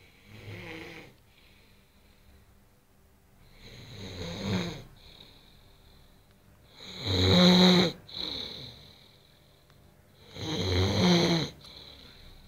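A man snoring in his sleep: four snores, each about a second long and roughly three seconds apart, the third the loudest.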